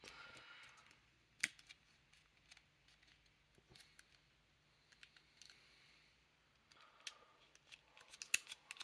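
Faint clicks and light scraping of wooden puzzle box parts being slid and turned by hand, with one sharper click about a second and a half in and a quick cluster of clicks near the end.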